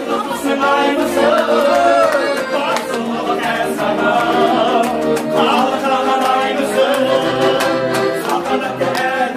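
Live folk song: a man singing over a piano accordion and a strummed dombra, with a steady pulsing beat.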